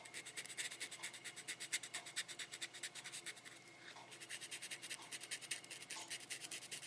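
1800-grit wet sandpaper rubbed by hand over the painted body of a scale-model car, in quick, even back-and-forth strokes. The paint is being smoothed of its orange peel.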